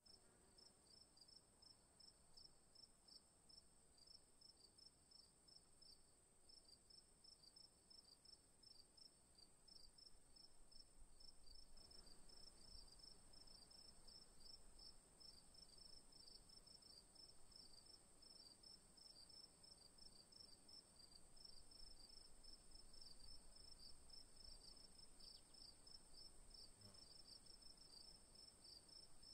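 Faint insect chorus: a steady high-pitched trill with rapid, repeated chirps beneath it, running on without a break.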